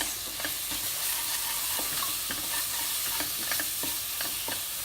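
Onion-tomato masala frying and sizzling in oil while a spoon stirs it, with short scrapes and taps of the spoon against the pan every half second or so.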